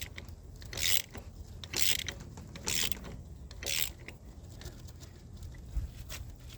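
Hand ratchet wrench clicking in five strokes about a second apart, then quieter, as the harmonic balancer bolt of a Chevy 454 big-block is turned out by hand.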